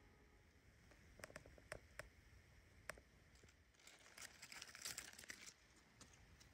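Near silence, broken by a few faint light clicks and a brief crinkly rustle a little past the middle, such as brushing through twigs, moss and dry leaves on the forest floor makes.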